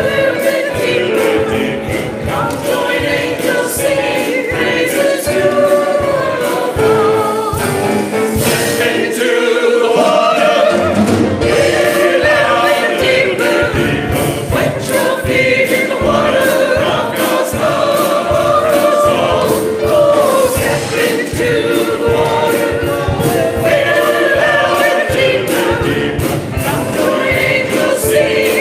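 Church choir singing a gospel song over an instrumental accompaniment with a steady beat.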